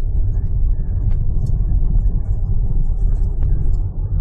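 Steady low rumble inside a car's cabin as it drives on an icy road: tyre and road noise with the engine underneath, plus a few light ticks.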